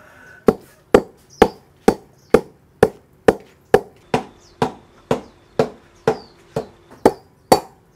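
Pestle pounding galangal in a mortar, steady rhythmic strikes about two a second. The galangal is being crushed to a coarse, fluffy pulp for a marinade.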